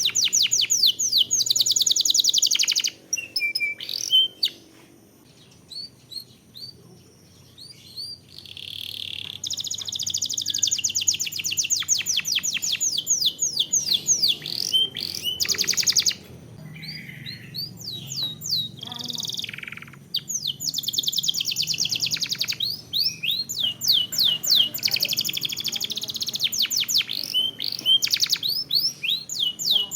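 Canary singing long, rolling trills of very fast repeated notes, with a lull of scattered short chirps about three seconds in before the rolling song picks up again.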